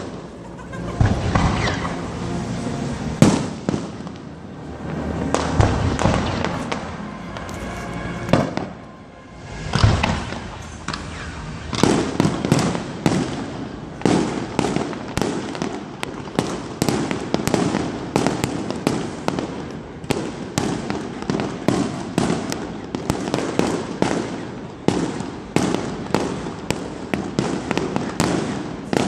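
Aerial fireworks display: shell bursts going off with booms at irregular intervals, then from about twelve seconds in a rapid barrage of sharp reports, several a second.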